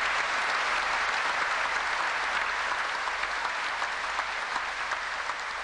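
Large audience applauding a speaker, a dense even clapping that holds steady and eases slightly toward the end.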